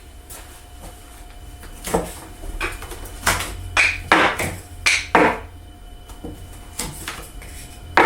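Handled pieces of CNC-cut wood knocking and clattering as they are pried loose and set down, about eight separate knocks at uneven spacing, a few ending in a short ringing clink, over a faint low steady hum.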